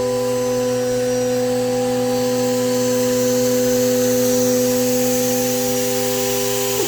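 2.2 kW water-cooled CNC spindle running wide open, a steady high-pitched whine, with a second steady motor tone that cuts off suddenly near the end.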